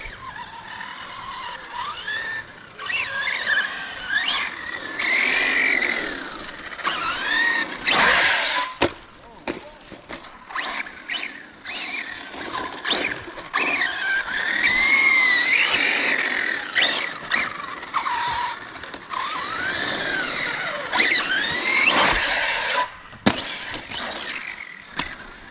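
Radio-controlled car's electric motor whining, rising and falling in pitch again and again as the throttle is worked, over a steady rush of tyre noise, with sharp knocks as it runs over the bumps of an asphalt pump track.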